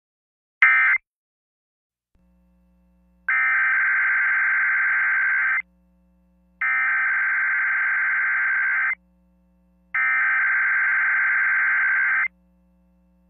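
Emergency Alert System digital data bursts: the last short end-of-message burst about half a second in, then three long header bursts of shrill, warbling data tones, each a little over two seconds with about a second's pause between. A faint steady hum sits under the header bursts.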